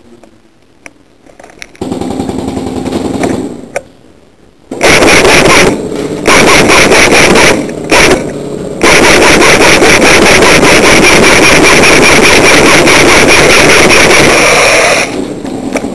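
Airsoft gun firing on full auto, very loud and close: a few short bursts starting about five seconds in, then one long burst of about six seconds that stops shortly before the end.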